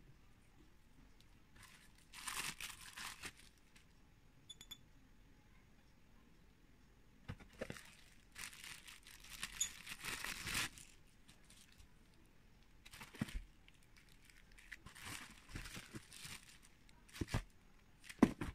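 Clear plastic packaging bag crinkling and rustling in several separate bursts as it is pulled open and off a toothbrush charger base. A single sharp knock near the end.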